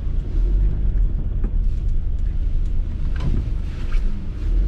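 Steady low rumble of a motor vehicle.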